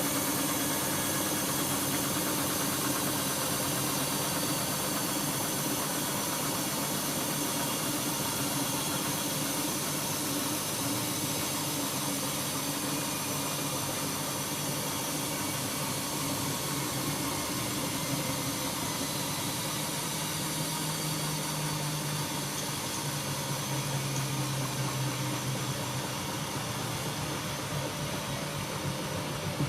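Siemens iQ-series washing machine running: a steady motor hum with a constant hiss, the low hum growing stronger for a few seconds in the second half.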